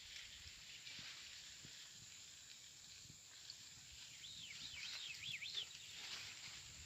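Faint outdoor ambience with a steady high hiss. About four seconds in, a bird gives a quick series of about five arching, whistled notes.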